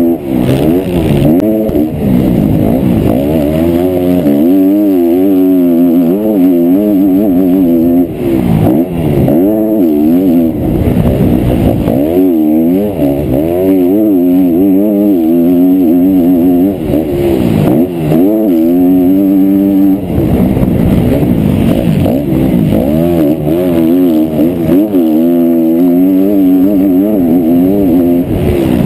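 Motocross bike engine heard up close from on board, revving hard and falling back again and again as the rider accelerates, shifts and rolls off through the ruts and jumps, with brief dips near 8, 17 and 20 seconds.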